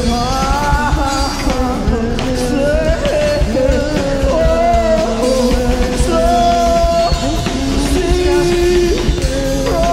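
Live experimental band music: held pitched notes that step to a new pitch every second or so, over a dense low rumble.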